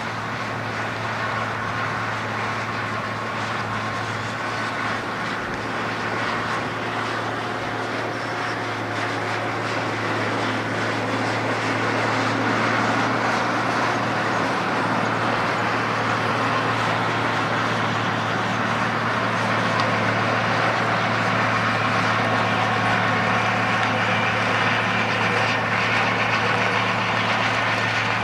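Fendt 926 Favorit tractor's six-cylinder diesel engine running steadily under load with a low drone, mixed with the noise of the Strautmann spreader's PTO-driven beaters throwing out old silage. The sound grows gradually louder as the rig comes closer.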